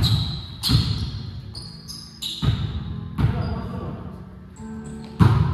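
A volleyball being struck, about five hits roughly a second apart, with sneakers squeaking on the hard gym floor. Each hit is followed by the hall's long echo.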